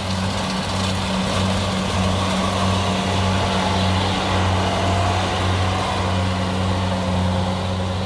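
Kubota DC-70 Plus combine harvester running steadily while cutting and threshing rice: a constant low diesel hum under an even wash of machinery noise.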